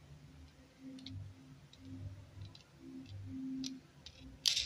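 Faint, scattered clicks and handling sounds from a Signet 515 paddlewheel flow sensor being turned in the hand, with one sharper, louder click near the end. A low hum comes and goes underneath.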